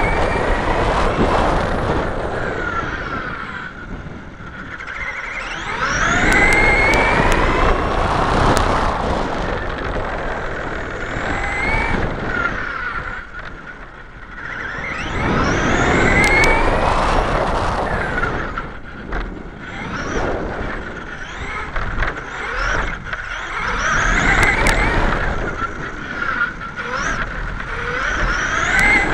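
Traxxas E-Revo brushless electric RC truck driving on rough asphalt: the motor's whine rises in pitch as it speeds up and falls as it slows, in repeated surges, over a rough tyre and road noise.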